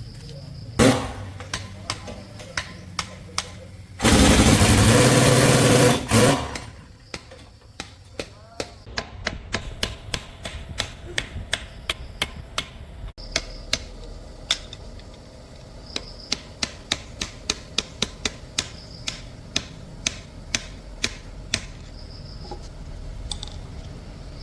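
Steady hammering on metal, about two sharp strikes a second, with a louder blow about a second in. A loud hiss lasting about two seconds breaks in a few seconds in.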